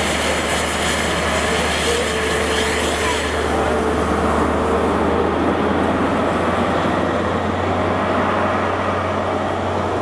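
Class 43 HST power car's diesel engine running with a steady low hum as it pulls slowly past, with a high hiss that fades after about three seconds, then the coaches rolling by.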